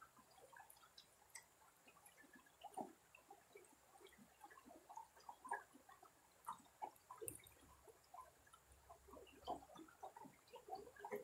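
Faint sound of shallow river water trickling over stones, a scatter of small plinks, drips and gurgles.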